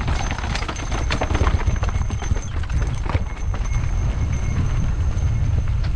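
Mountain bike riding over a rough dirt trail: rapid irregular clicks and knocks of the bike rattling, over a steady low rumble of wind and vibration on the microphone. A faint high whine breaks off briefly about halfway through.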